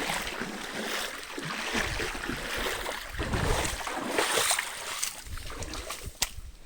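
Knee-deep stream water swishing and splashing around the legs of someone wading, with surging low rumbles of wind on the microphone; it eases off about five seconds in.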